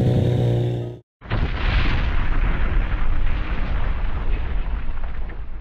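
A motorcycle engine running steadily for about the first second, then a sudden cut and a loud rumbling explosion-like sound effect that begins to fade near the end.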